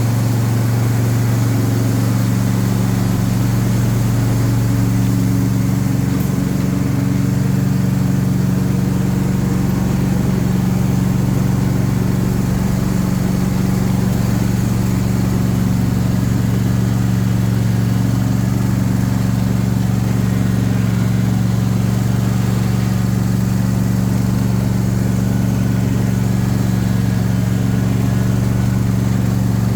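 John Deere S130 lawn tractor engine running steadily at an even speed, with no squeal from the drive belt or pulleys. The squeak that used to come on clutch and brake release is gone after the pulley repair.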